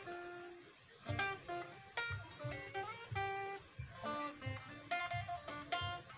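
Unplugged 1997 Squier Stratocaster electric guitar played acoustically, with no amplifier: a run of picked single notes mixed with short strummed chords in a loose rhythm. This is an unamplified test of the guitar after repair.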